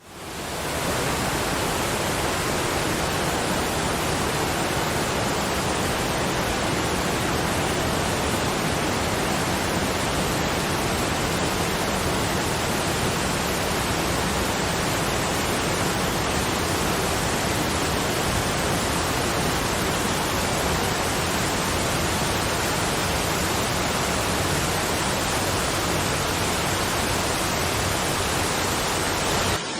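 Steady, even rushing noise with no separate events in it. It starts abruptly and cuts off just before the end.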